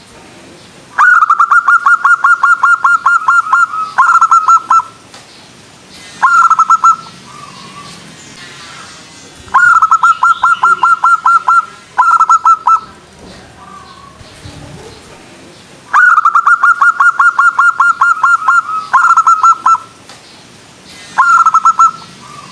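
Zebra dove (perkutut) singing its staccato cooing song: three loud bouts, each a long rapid run of about six pulsed coos a second followed by two short bursts, with a few seconds' pause between bouts.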